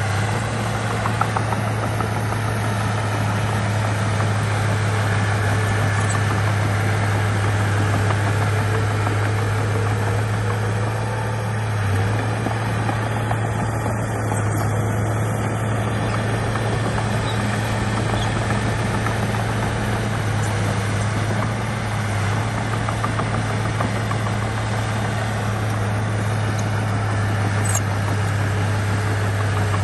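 Diesel engine of heavy earthmoving machinery running steadily, a constant low drone with little change in level.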